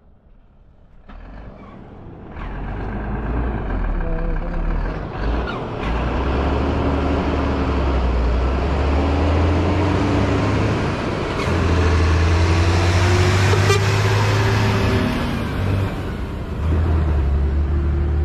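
Heavy dump truck's diesel engine growing louder as it approaches, loudest about two-thirds of the way through as it passes close by, then fading. Another vehicle's engine rises again near the end.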